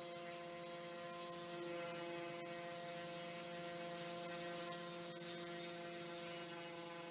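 CNC router spindle running steadily while its bit cuts shallow grooves in a wooden board, a constant hum with a high whine and hiss, with a few faint ticks.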